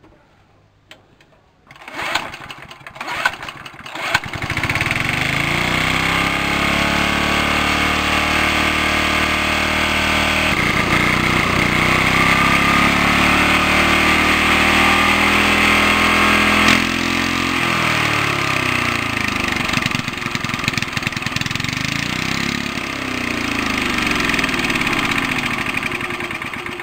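Walk-behind rotary lawn mower's small petrol engine, with a freshly cleaned spark plug, cranked on its pull cord. It catches about four seconds in and runs steadily. After a sudden change partway through, its speed dips and climbs in slow swells.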